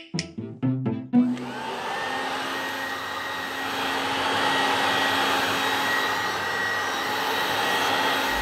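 A short click of a handheld dog-training clicker, under a few plucked-string music notes, then a vacuum cleaner switches on about a second in and runs steadily with a constant motor whine.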